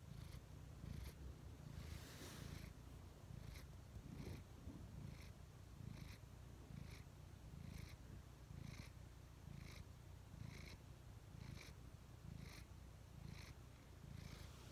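Ginger-and-white domestic cat purring right at the microphone: a steady low rumble with a short raspy rasp about once a second.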